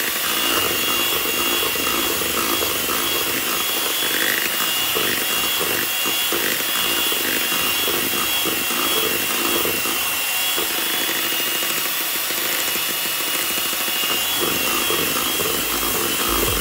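Electric hand mixer running steadily, its two beaters whipping thick cream in a stainless steel bowl, with a constant high motor whine.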